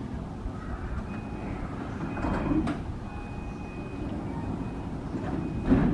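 Commuter train at a station platform: a steady low rumble with two louder knocks, one about two seconds in and one near the end, and a faint steady high tone in between.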